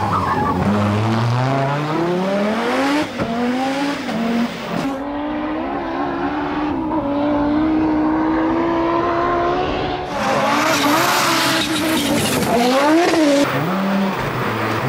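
Audi Sport quattro S1 Group B rally car's turbocharged five-cylinder engine at full throttle. Its pitch climbs in steps as it shifts up through the gears, then holds high, and near the end it drops and rises again. The sound changes abruptly a few times where clips are joined.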